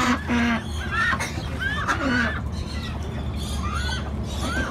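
White domestic ducks quacking, with a harsh call just after the start, among repeated short rising-and-falling bird chirps. A steady low rumble runs underneath.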